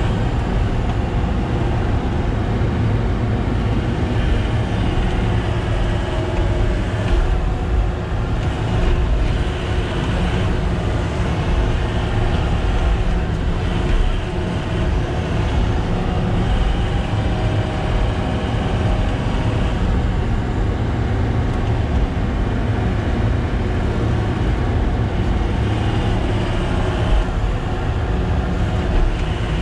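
Heavy diesel engine running steadily under load, a deep, even rumble.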